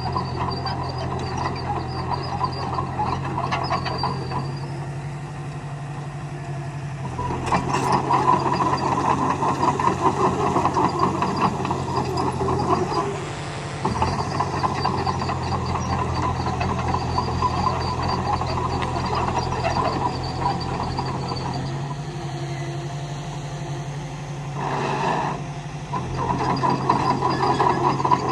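A Komatsu D20A crawler bulldozer's diesel engine running steadily, growing louder in two stretches, about a third of the way in and near the end, as it works under load, with rattling from the machine.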